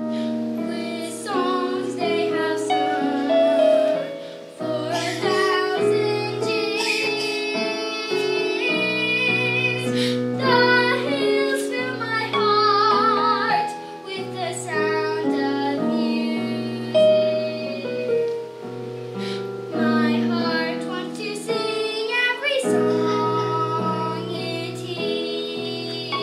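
A young girl singing a solo over instrumental accompaniment, with a wavering vibrato on her long high notes.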